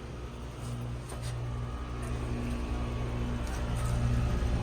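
2007 Heil Quiet Comfort 5-ton air conditioner condensing unit running, its scroll compressor and condenser fan giving a steady low hum with a few faint ticks. The fan is turning slowly, which the owner suspects comes from a bad run capacitor.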